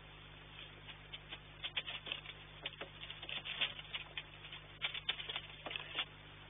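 Irregular sharp taps and scratches, thickest in the middle, from a peregrine falcon scrambling into its nest box: claws on the metal grating and gravel. A steady low hum runs underneath.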